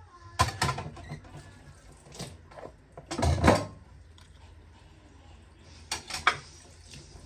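A few knocks and clatters of household objects being handled, the loudest a rattle of about half a second roughly three seconds in, with two more knocks near the end.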